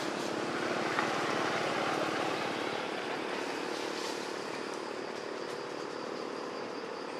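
Steady hum of a motor vehicle engine, easing off slowly; a faint high steady tone joins about four seconds in.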